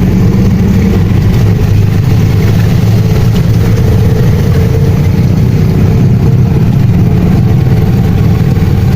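Steady engine and road noise of a moving motor vehicle, heard loud from on board.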